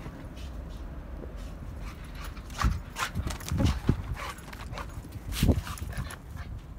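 Pitbull puppy running and bounding through snow: paws thumping and crunching in uneven bursts, starting a little over a third of the way in.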